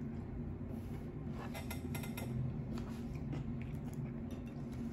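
Quiet eating sounds at a meal: a few short, light clicks and taps scattered through, over a steady low hum.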